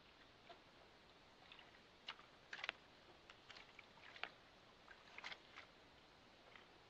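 Near silence, broken by a dozen or so faint, irregular clicks and taps.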